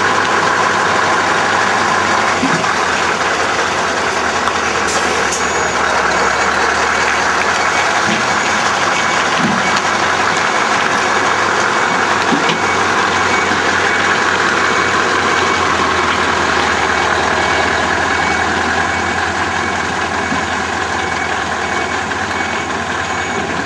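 Scania 144L 530 lorry's V8 diesel engine idling steadily.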